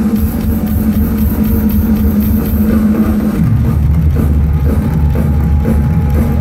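Live rock drum solo on a full drum kit, played through an arena PA and recorded from within the crowd: rapid hits over a heavy bass-drum low end, which drops deeper a little over halfway through.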